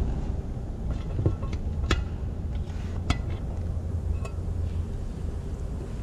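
Metal tools and parts clinking now and then, several light, sharp clinks a second or so apart over a steady low rumble.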